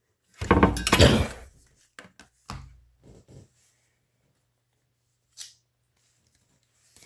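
Cards and plastic packaging being handled on a table: a loud rustling burst near the start, then a few short clicks and knocks.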